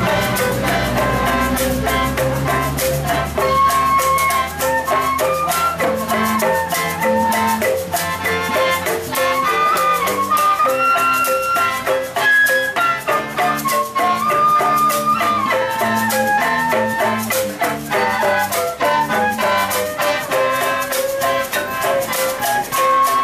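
Ensemble of traditional bamboo instruments playing. A bamboo wind instrument carries a melody of held notes that step up and down, over the quick, steady knocking of a bamboo xylophone struck with wooden mallets and other bamboo percussion.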